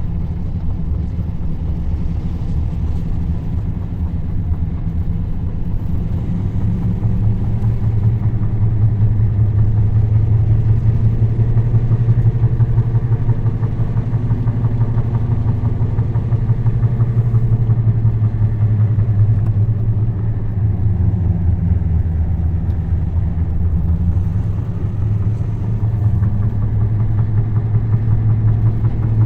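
An engine running steadily with a low drone, getting a little louder for a stretch in the middle.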